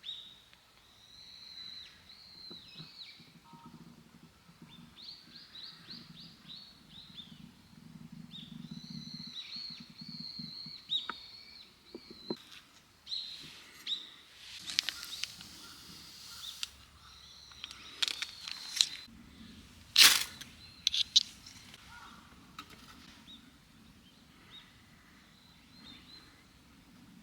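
Small birds chirping and singing with high, quickly repeated notes. From about halfway through come a series of sharp clatters and knocks, the loudest about twenty seconds in.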